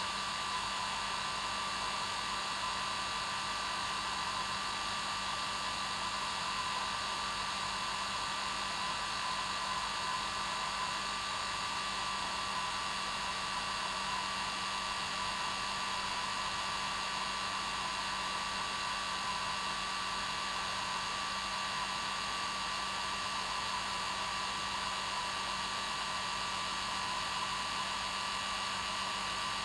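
Hair dryer running continuously at a steady, unchanging level: an even blowing hiss with a steady motor whine, used as white noise.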